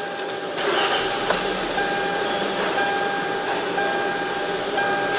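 A car's electronic chime sounds as a steady tone repeating in pulses about a second long with short gaps, over a steady engine or blower noise that comes up about half a second in, while the car is being restarted to try to catch its intermittent no-start.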